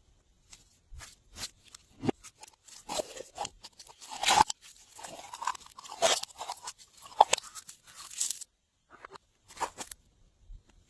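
Slime being worked by hand: a dense run of sticky pops and crunchy crackles, busiest from about one to eight seconds in, then a few scattered pops near the end.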